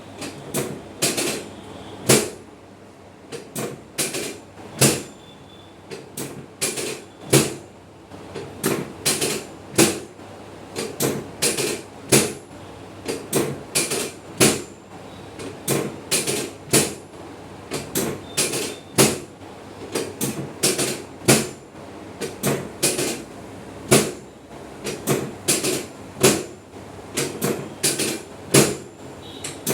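A long run of sharp knocks or slaps, uneven in spacing and strength, about one or two a second.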